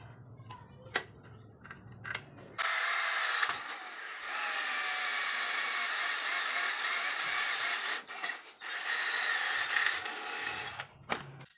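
A small motor whirring steadily with a high, even pitch, starting after a few light clicks, dropping out briefly twice, then stopping.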